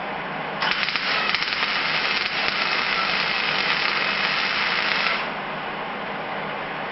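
MIG welder arc laying a bead on sheet steel: a steady, frying crackle that starts about half a second in and cuts off after about four and a half seconds.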